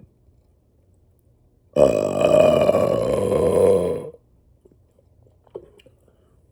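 A person's single loud, drawn-out burp, lasting a little over two seconds and starting about two seconds in.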